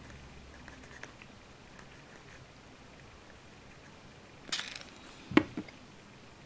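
Faint handling of small plastic kit parts, then a brief rustle and a sharp knock with a smaller one just after, about five seconds in, as a plastic glue bottle is set down on a cutting mat.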